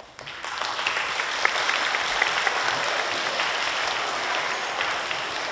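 Audience applauding, the clapping coming up in the first second and easing off slightly near the end.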